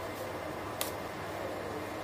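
Palette knife spreading soft coffee cream over a cake layer: a quiet, steady scrape over a low room hum, with one light click just under a second in.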